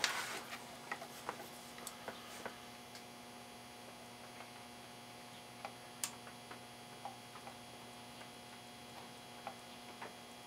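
Hand soldering on a CB radio's circuit board while resoldering daughterboard joints: faint, irregular small ticks and clicks, with one sharper click about six seconds in, over a steady faint hum.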